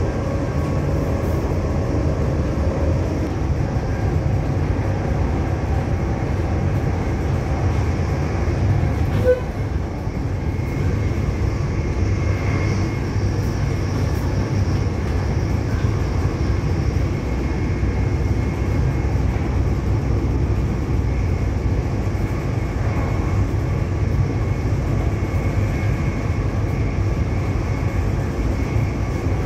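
A Class 180 Adelante diesel-hydraulic multiple unit, its Cummins diesel engines running with a steady low rumble and a short click about nine seconds in.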